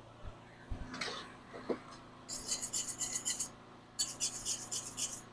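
Rasping scrapes on steel in three bursts of quick back-and-forth strokes, each about a second long, after a few light knocks. The scraping is typical of brushing or filing a fresh tack weld clean.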